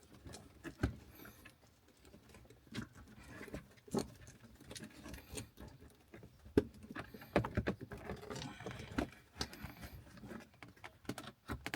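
Irregular clicks, taps and rustling as hands work plastic interior trim and the rubber shift boot loose from a car's center console, with a few sharper knocks.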